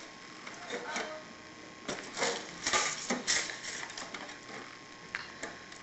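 Plastic toy cash register being handled: a run of clicks and clattery rattles, busiest and loudest in the middle.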